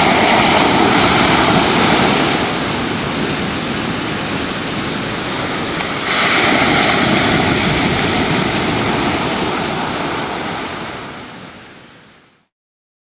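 Ocean surf: waves breaking and washing in, with a second surge about six seconds in, then fading out to silence near the end.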